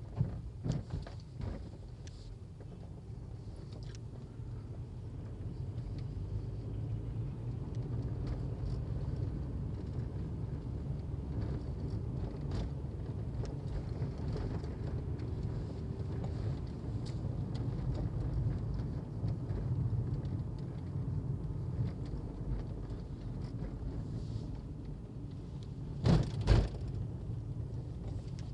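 A motor vehicle's engine running with a steady low rumble, with a few knocks near the start and two short, loud knocks near the end.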